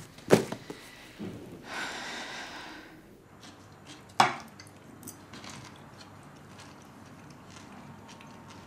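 A sharp knock, then a breathy sigh lasting about a second, then a sharp clink with a short ring about four seconds in. After it come only faint, light clicks of cutlery on plates.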